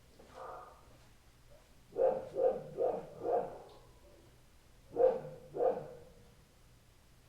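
A dog barking in short, separate barks: one soft bark near the start, a run of four about two seconds in, then two more about five seconds in.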